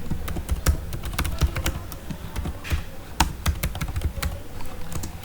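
Computer keyboard typing: a quick, irregular run of key clicks as code is entered.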